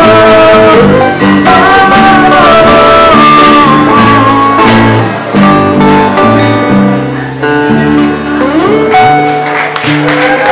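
Live acoustic band playing a song: strummed acoustic guitars over held acoustic bass guitar notes, with a man singing the melody at the microphone.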